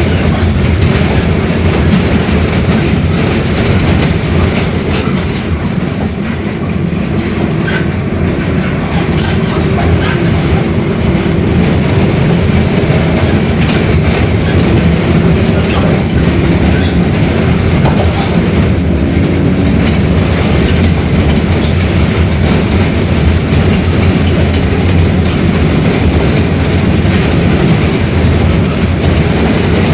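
Mercedes-Benz OF-1721 Bluetec 5 city bus under way, its diesel engine running steadily with the differential growling. Scattered clicks and rattles sound over the rumble.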